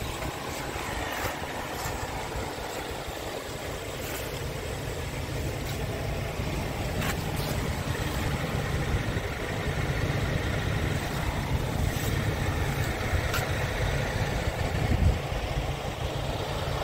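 Scania R tractor unit's diesel engine idling steadily, with a few faint clicks over it.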